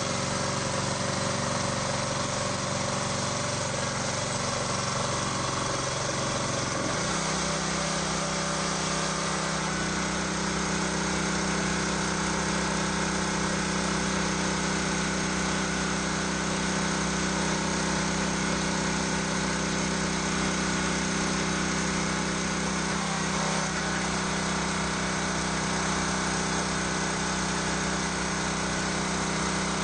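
Hydraulic log splitter's 6.5 hp engine running steadily, its note changing about seven seconds in and again slightly about 23 seconds in.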